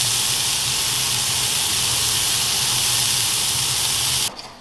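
Rump steak frying in oil in a hot pan: a steady loud sizzling hiss with a low hum under it, cutting off suddenly near the end.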